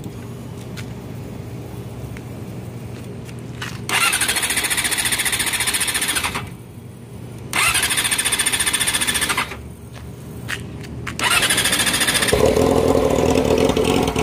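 Yamaha R6 sportbike's inline-four engine idling through a candy-red Toce exhaust, then revved twice, each rev held about two seconds. It is revved again and held near the end.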